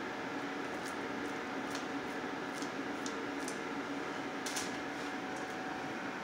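Raw ground chicken being patted and pressed into a patty between the hands: a series of faint, soft wet squishes over a steady background hum.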